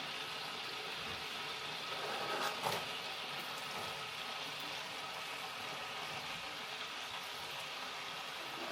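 Chicken sizzling in a frying pan, a steady hiss, with a brief knock against the pan about two and a half seconds in.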